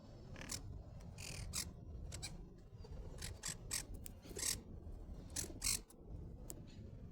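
A parrot making about a dozen short, raspy scratching noises at an irregular pace, some close together, over a low steady background rumble.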